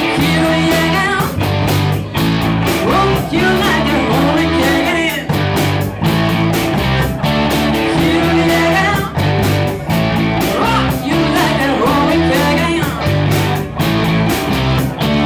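Rock music: electric guitar over bass and a steady drum beat, with a lead line bending in pitch above it.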